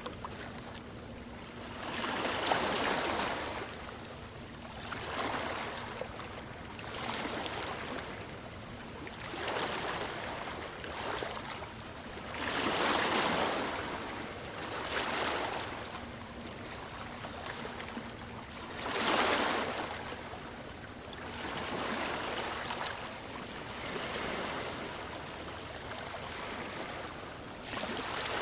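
Ocean waves washing in, one swell of surf every two to three seconds, each rising and falling away, with a few bigger breakers among them.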